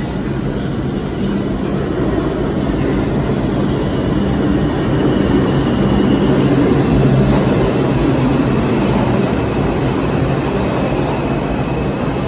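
New York City subway 2 train, R142 cars, pulling into an underground station: a steady rumble of wheels on rail that grows louder as the train comes in, loudest six to eight seconds in. A faint thin wheel squeal sounds a few seconds in.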